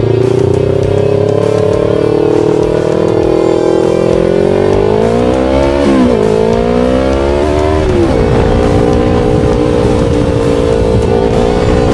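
Yamaha R3 parallel-twin sport bike engine pulling through the gears. It climbs slowly in pitch, drops sharply at upshifts about six and eight seconds in, then holds a steady note at cruising speed.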